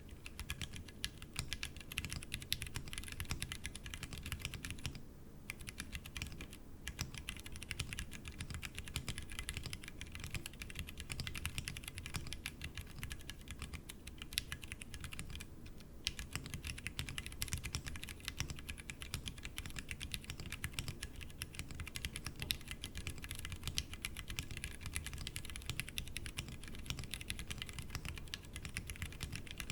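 Continuous fast typing on a Tofu60 60% mechanical keyboard with stock Cherry MX Brown tactile switches, sitting directly on the desk without a deskmat. The keystrokes come in quick, dense clicks with a few short pauses.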